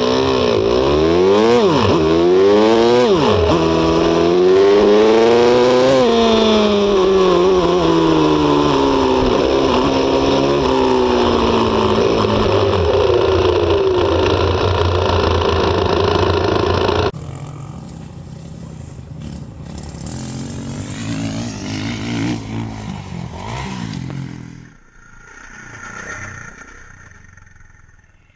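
Kawasaki KX450F single-cylinder four-stroke motocross engine, heard close, accelerating and easing off again and again, its pitch repeatedly rising and falling. About two-thirds through the sound cuts abruptly to a quieter, more distant motorcycle engine that fades away.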